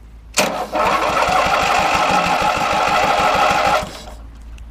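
Replacement electric starter cranking a Briggs & Stratton 17 hp opposed-twin engine, starting suddenly and turning it over with an even, rapid chug of compression strokes for about three and a half seconds before stopping abruptly. The strong cranking shows that the starter swap fixed the weak, overheating starter.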